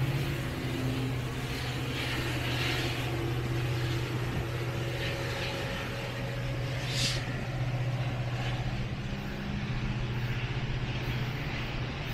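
Large diesel engine idling steadily, a low, even hum with a fine pulse. A short hiss of air comes about seven seconds in.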